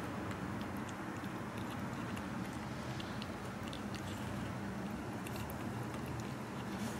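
A kitten eating wet cat food from a plastic tub: small irregular wet chewing and smacking clicks over a steady low background rumble.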